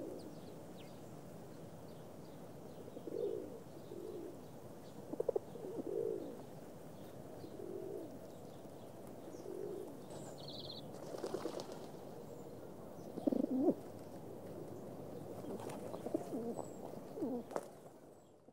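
Feral pigeons cooing, low calls repeating every second or two, some of them close and louder.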